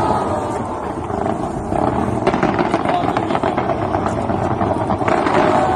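Fireworks crackling and popping in a dense, continuous barrage.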